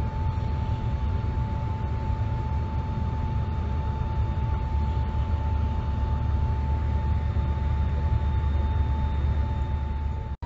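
Inside a jet airliner's cabin while taxiing: a steady low rumble with a constant high tone running over it. The sound breaks off for an instant near the end and resumes with a slightly different tone.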